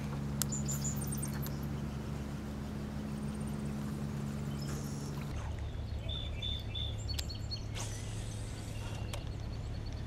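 Outdoor creek ambience: a steady low hum with a few short, high bird chirps, including a quick run of three notes past the middle. The background changes abruptly about five seconds in.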